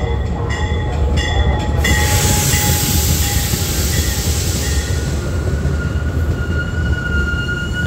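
MARC commuter train coaches rolling past close by: a steady rumble and rush of wheels on rail, with a few clacks in the first two seconds. About halfway in, a high, steady squeal sets in as the train slows to stop at the platform.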